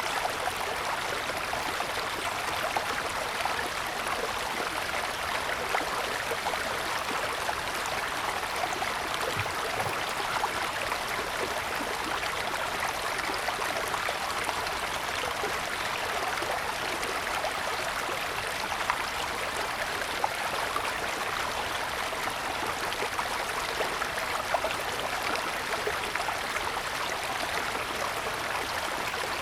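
Mountain stream flowing and splashing over snow-covered stones, a steady rushing with small splashes throughout.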